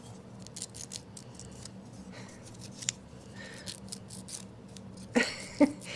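Nail file scratching in short, irregular strokes across a capuchin monkey's toenails.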